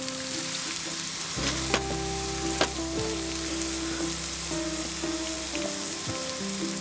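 Hamburger steak sizzling on a hot iron griddle plate over a wood fire: a steady frying hiss with a few sharp ticks.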